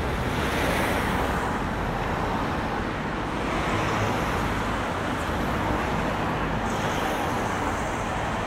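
Steady road traffic noise: cars passing along a street, tyre and engine noise with no single standout event.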